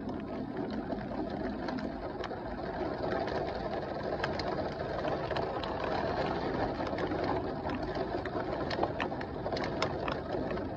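Heavy rain falling steadily in a downpour, with many sharp ticks of drops striking a hard surface close by. It swells a little in the middle.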